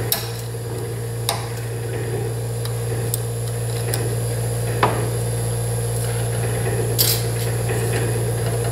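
A handful of short sharp clicks and taps, about five, as small metal battery contacts and a plastic soldering-iron housing are handled, over a steady low electrical hum.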